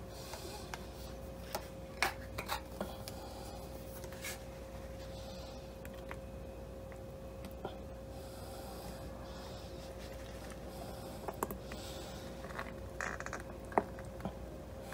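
A plastic squeeze bottle of horseradish sauce being squeezed out, with faint soft squirts and a few light clicks and taps, over a steady faint hum.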